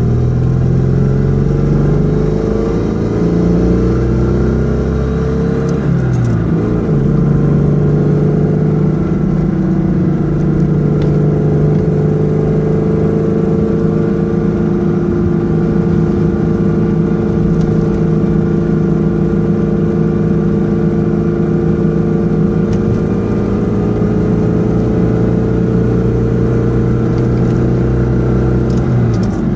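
Citroën 2CV air-cooled flat-twin engine pulling the Dyane along the road, heard from inside the cabin, loud through a broken rear exhaust silencer. Its steady note shifts briefly with a gear change about six seconds in and again near the end.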